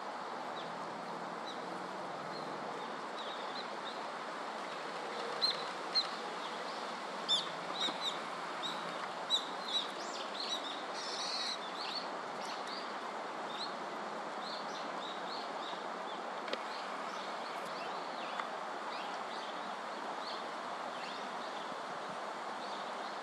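Small birds chirping in short, high calls over a steady background hiss. The chirps come thickest and loudest between about five and twelve seconds in, then scattered.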